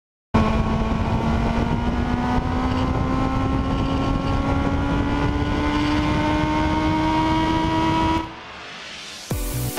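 Motorcycle engine running under light, steady acceleration, its pitch rising slowly, heard from on board the bike with road and wind noise. It cuts off about eight seconds in, and electronic dance music with a beat starts near the end.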